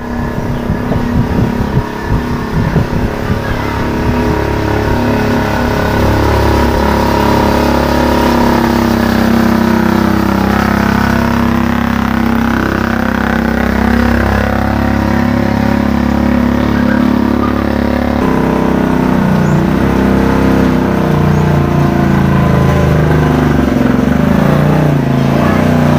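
Honda Beat automatic scooter engine driving a small homemade Jeep, running steadily under way while towing a trailer, its pitch rising and falling over the last several seconds as the engine speed changes.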